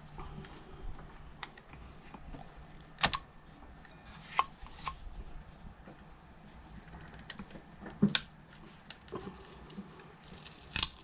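Scattered sharp clicks and light knocks of a small red plastic cover being pried off the rear axle of a Xiaomi M365 Pro electric scooter and handled, about five distinct clicks with quiet handling between them.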